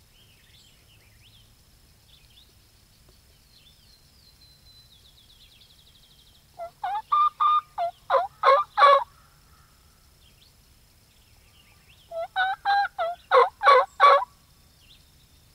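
Two runs of loud turkey calls, each a string of about ten short pitched notes lasting about two seconds, softer at first and louder toward the end; the first begins about halfway through and the second about five seconds later. Faint songbird chirps and a brief trill come before them.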